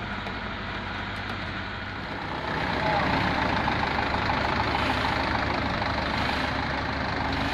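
Engine of heavy road-paving machinery running steadily, growing louder about two and a half seconds in.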